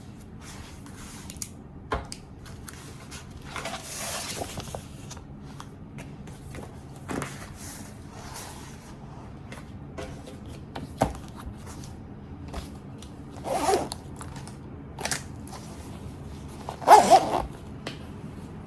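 Small handling sounds: scattered light clicks and brief rustles of objects being moved, the loudest a short cluster of rustling near the end.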